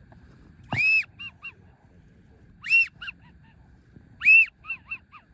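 Goose call blown in three loud honking sequences: each a long high note that breaks upward and arches over, followed by two or three quick short clucks.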